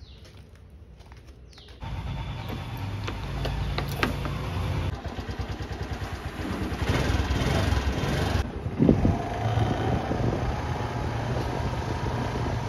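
Suzuki scooter engine that comes on about two seconds in and keeps running as the scooter is ridden, its level rising and falling with the throttle.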